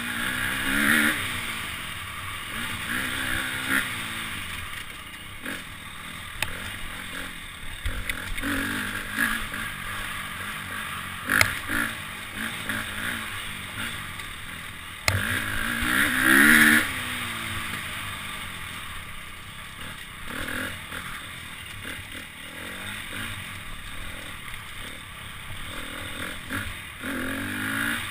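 Dirt bike engine revving up and down as the throttle is worked over rough singletrack, with clatter from the bike over rocks and a few sharp knocks, the strongest about 11 and 15 seconds in.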